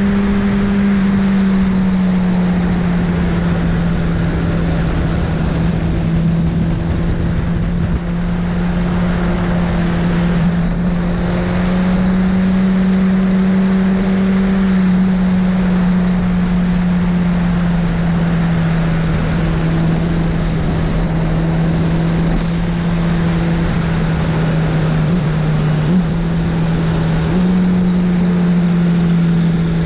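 Honda CBR1000RR's inline-four engine running at a steady cruise, its pitch dipping and rising slightly a few times, with wind rushing over the microphone.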